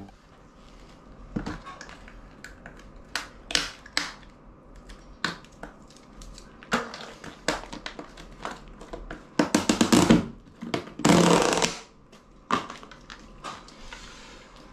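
Plastic bucket and lid being handled and opened: a scatter of sharp plastic clicks, knocks and crinkles, with a longer rustling scrape about eleven seconds in.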